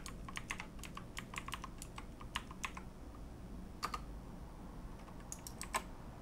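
Computer keyboard typing: a quick run of keystrokes over the first two and a half seconds, a couple more about four seconds in, and a short flurry near the end.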